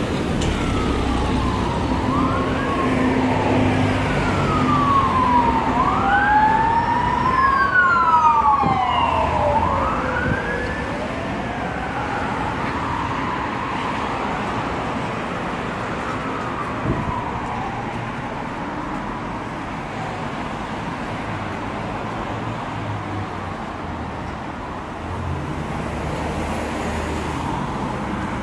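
Emergency vehicle siren wailing, its pitch rising and falling slowly, loudest in the first ten seconds and then fading away, over steady road traffic noise.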